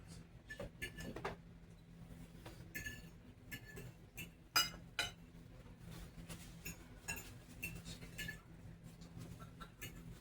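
Forks and knives clinking and scraping against dinner plates while people eat, in irregular small clinks with a short ring; the loudest clink comes about four and a half seconds in.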